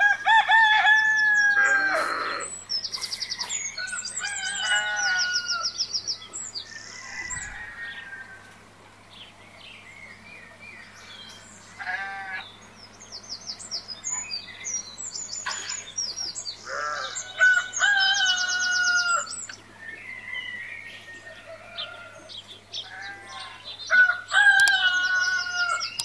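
A rooster crowing three times, with hens clucking and small birds chirping and trilling in between.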